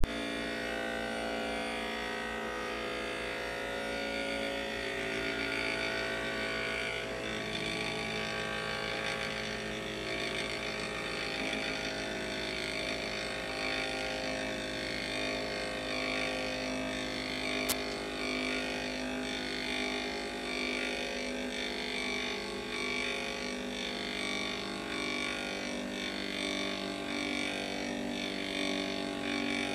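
CNC-machined metal gyroscope spinning on its pivot point, a steady whirring hum that barely changes. One sharp click about 18 seconds in.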